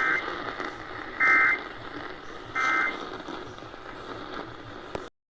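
Emergency Alert System end-of-message signal over broadcast radio: three short bursts of digital data tones, evenly spaced, marking the end of the tornado warning. Steady radio hiss runs beneath, and the audio cuts off abruptly to silence near the end.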